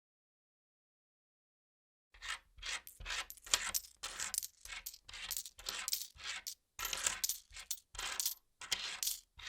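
Money being counted by hand: a quick run of short, crisp strokes, about two to three a second, starting about two seconds in after silence.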